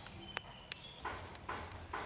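Faint footsteps scuffing on a concrete floor, with two sharp clicks in the first second.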